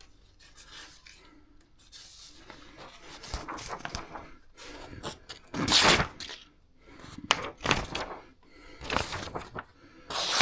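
A sheet of paper being handled and sliced by a freshly sharpened Mora Garberg Scandi-grind knife. Several short, crisp strokes sound, the loudest about six seconds in.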